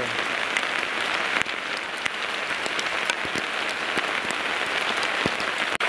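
Steady rain falling, an even hiss with scattered sharper drop hits.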